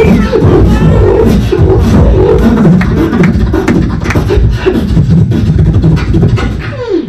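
Live beatboxing into a handheld microphone over a PA: a fast rhythm of deep kick sounds and sharp snare-like clicks over a low pitched line, easing off just before the end.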